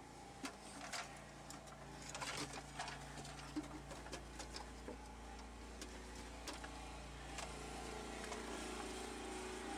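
Scattered scraping, rustling and clicks of someone crawling through a dirt tunnel with the camera in hand, over a steady low hum.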